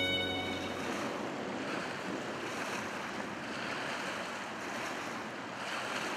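Choppy river water washing and splashing in slow swells, with some wind. The last notes of a music cue fade out right at the start.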